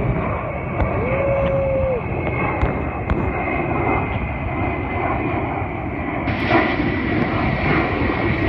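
Ilyushin Il-76 jet transport flying, its four turbofan engines making a steady noise.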